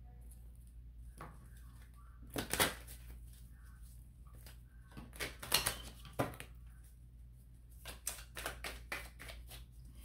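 Deck of oracle cards being shuffled by hand: clusters of papery clicks and flicks, about two and a half seconds in, again around five to six seconds in, and a quick run of clicks near the end.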